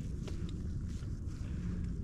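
Wind buffeting the microphone outdoors in a marsh, a steady low rumble, with a few faint ticks of movement in the reeds.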